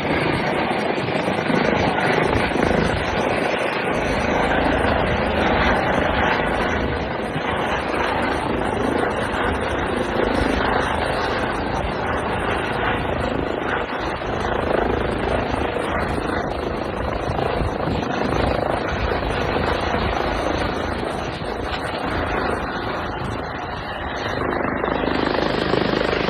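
Medevac helicopter running, a steady loud noise of rotor and turbine engine that dips slightly and swells again near the end.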